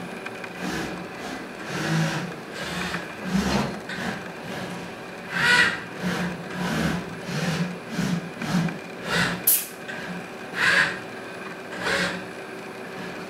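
KUKA industrial robot arm running: a steady electric hum under a string of irregular short swishing noises, with a brief high hiss about halfway through.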